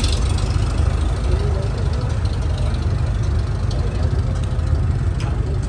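1947 Farmall M tractor's four-cylinder engine running steadily at close range, a continuous low rumble.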